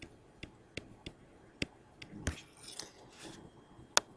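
Tablet stylus tapping and scratching on the screen while handwriting a number: about six separate sharp clicks, with softer scratching in between.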